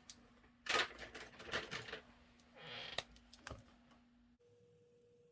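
Felt-tip marker scratching across paper in a few quick strokes, mixed with light clicks and taps of the marker on the table. After about four seconds it stops and only a faint steady hum remains.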